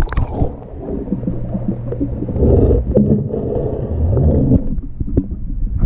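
Muffled underwater sound of pool water sloshing and rumbling, heard through a submerged camera's microphone, with a few knocks and scrapes.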